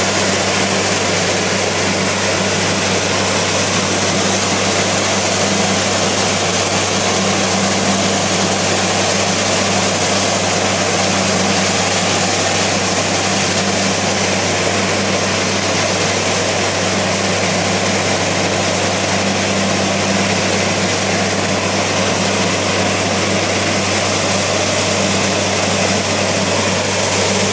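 Truck-mounted water-well drilling rig running steadily while water is blown out of the borehole: a constant low engine drone under a loud, even hiss of spraying and gushing water.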